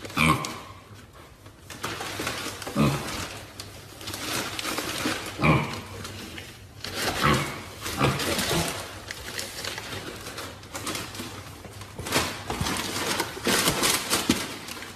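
An animal's short calls, repeated several times at irregular intervals.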